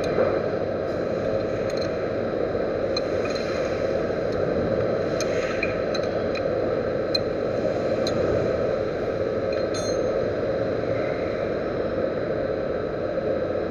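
Metal lathe running steadily, with small sharp metallic clinks scattered through the first ten seconds or so.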